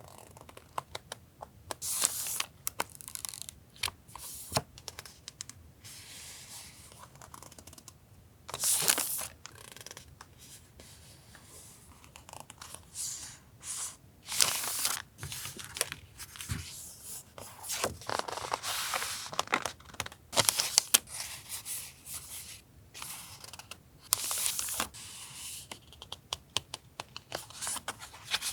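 Paper and packaging being handled at a desk: dry, irregular rustling and crinkling of sheets, with several louder ripping or peeling strokes of about a second each.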